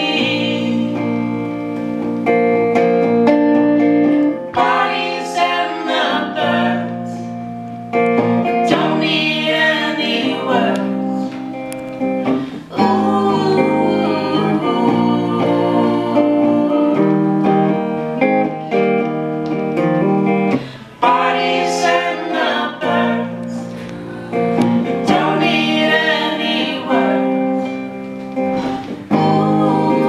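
Live song: several voices singing together over a plucked acoustic guitar.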